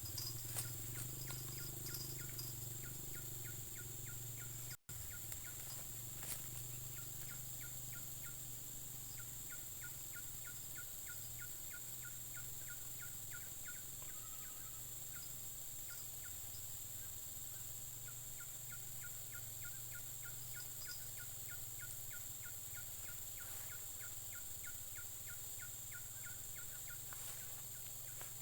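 Riverside ambience while waiting on the line: a steady high-pitched insect drone with a low steady hum beneath, and from about eight seconds in a regular chirping pulse, two or three a second, from an insect or frog. The sound cuts out for a moment about five seconds in.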